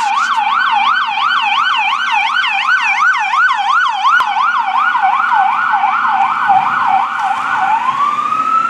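Electronic emergency-vehicle siren sounding a fast yelp of about three sweeps a second, which switches near the end to a slow rising wail.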